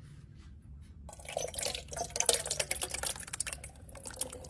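Canned minestrone soup poured from a tin can into the pot of a small rice cooker: liquid splashing with chunks of pasta, beans and vegetables. It starts about a second in and tails off near the end.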